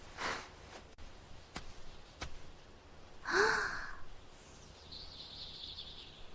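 Quiet forest ambience with faint high chirping and two soft clicks. About three seconds in comes a louder short, breathy, sigh-like sound whose pitch rises then falls.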